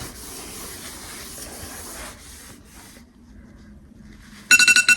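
A soft hiss for about two seconds. Then, near the end, an electronic timer alarm starts beeping loudly in rapid pulses, signalling that the five minutes are up.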